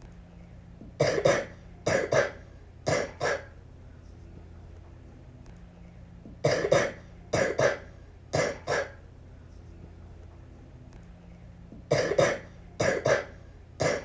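A little girl coughing in three fits about five seconds apart, each fit a run of three or four coughs. It is a cough from the flu.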